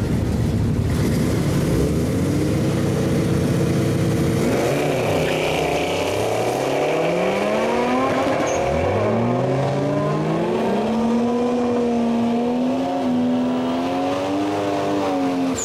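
Two drag cars, a Mazda RX-7 and a dark older car, revving at the start line, then launching and accelerating hard. The engine pitch climbs and drops back at each gear change, then holds a steady high note as the cars run down the strip.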